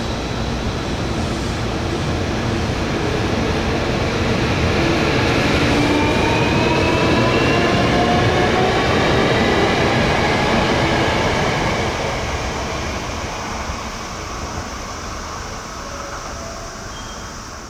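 Hankyu Kobe Line electric train pulling away, its traction motor whine rising in pitch as it gathers speed over the wheel and rail noise. It is loudest about eight seconds in, then fades as the train moves off.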